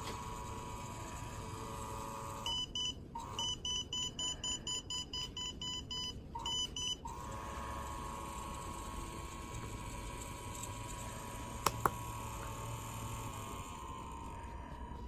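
Piezo buzzer beeping quickly, about three to four beeps a second, for a few seconds in the middle; rapid beeping is its signal that the ultrasonic distance sensor sees something close. Around the beeps a small DC fan motor gives a steady high whine, which fades out near the end, and two sharp clicks come about two-thirds through.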